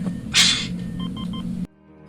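Starship interior sound effects from a TV soundtrack: a steady low electronic hum, a short hiss about a third of a second in, then three quick electronic beeps a little after a second in. The sound cuts off abruptly near the end.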